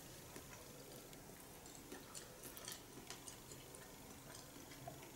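Very quiet eating sounds: a few faint, scattered clicks of a fork against a plate and soft chewing.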